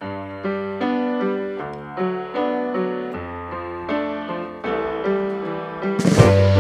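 Background music: a song's keyboard intro playing a run of held notes, with drums coming in near the end.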